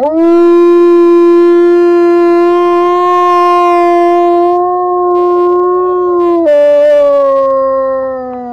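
Wolf howling: one long howl held at a steady pitch, which steps down about six and a half seconds in and sinks a little as it fades near the end.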